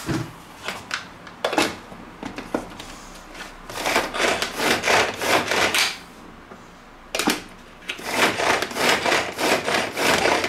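Hand-operated food chopper chopping parsley: two runs of quick strokes, about four a second, each a short rasping whirr of the blades, the first starting about three and a half seconds in and the second about seven seconds in. A few clicks of the lid being fitted come before.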